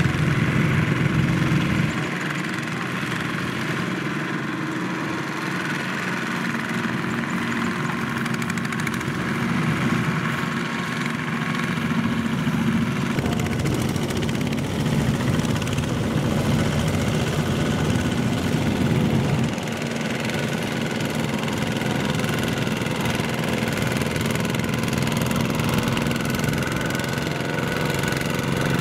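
Single-cylinder Kubota diesel engines of two-wheel walking tractors running steadily as they pull loaded trailers through mud. The engine sound shifts abruptly a few times.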